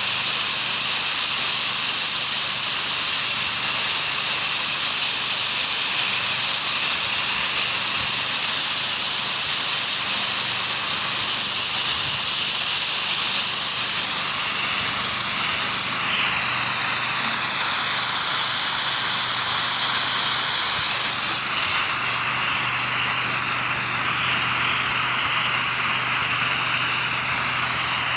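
Pressure washer spraying water steadily: a strong hiss of the high-pressure jet over the low, steady hum of the pressure washer's engine. The hiss shifts in tone a few times in the second half as the spray is moved across the surface.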